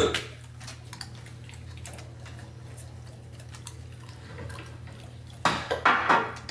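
Scattered small clicks and clinks of objects being handled over a steady low hum. A brief cluster of louder clattering or rustling comes about five and a half seconds in.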